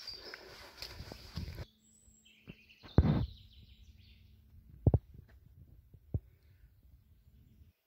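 Outdoor ambience with short bird chirps and several dull knocks, the loudest about three seconds in. It opens with rustling and clicking that stops abruptly.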